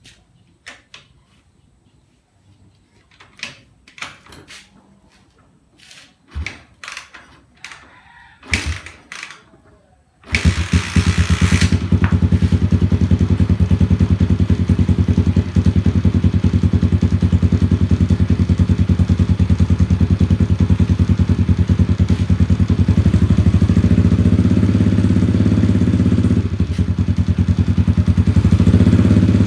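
A few scattered knocks and clicks, then about ten seconds in a Honda TMX 155's single-cylinder four-stroke engine starts and runs at idle with rapid, even firing pulses. It runs through a straight stainless bullet pipe with the silencer insert removed.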